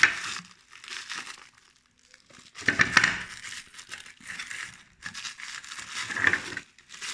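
Wrapping and paperwork being handled and crinkled in several irregular bursts, the loudest about three and six seconds in.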